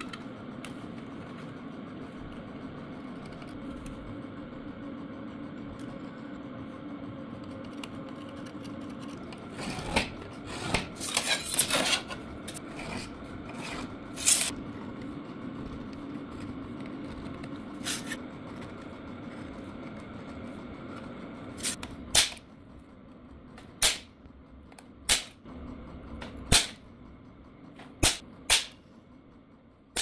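A steel scriber scratching lines into stainless steel sheet along a steel rule, with scraping and light clatter of the rule on the metal, over a steady low hum. In the last third, a center punch clicks sharply about seven times as it marks the points where the lines cross.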